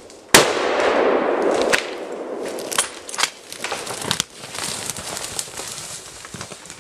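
A sudden sharp crack about a third of a second in, then a second or so of loud rustling, followed by scattered snaps and crackles of dry brush and twigs as a person pushes through dense undergrowth.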